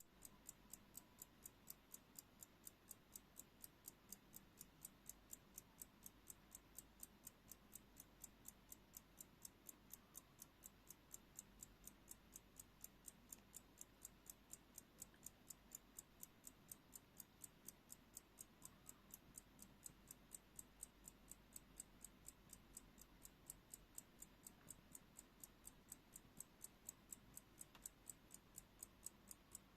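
Circa-1900 miniature German travel alarm clock ticking: faint, even ticks, a few each second, with a steady beat.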